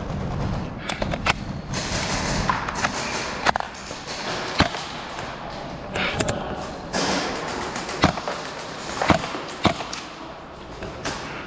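Scattered single airsoft shots cracking in an indoor arena, about nine sharp reports at irregular intervals, over a steady background noise.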